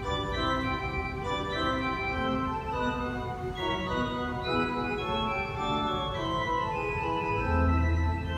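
Church organ playing music: sustained chords with notes moving over them every half second or so, and a deep pedal note coming in near the end.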